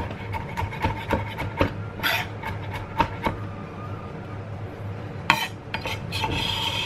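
Knife mincing garlic on a cutting board: quick repeated chops for about three seconds, then quieter, with a sharp knock a little after five seconds and a scrape near the end.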